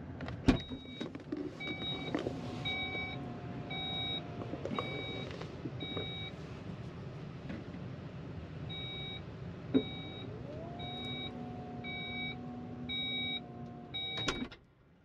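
Skoda Enyaq iV powered tailgate's warning beeper sounding evenly spaced high beeps, about two a second, over the hum of the electric tailgate motor, heard from inside the cabin. It comes in two runs: the first after a sharp click of the button, the second after a thump about ten seconds in, when the motor's pitch rises and then holds steady. The second run ends in a thump.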